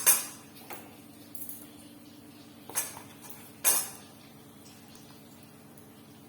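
Metal spoon knocking against a cooking pot a few times, the loudest knock near four seconds in, over a faint steady hum.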